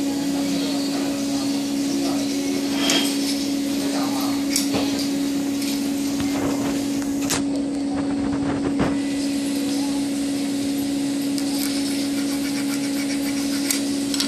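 Small blade scraping and clicking against a thin 1 mm wire as its sheath is stripped by hand, a few sharp clicks spaced seconds apart. Under it runs a steady low machine hum.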